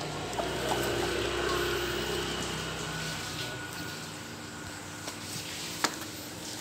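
A steady mechanical hum with a few held tones, loudest at first and fading after about three seconds, with a light click near the end.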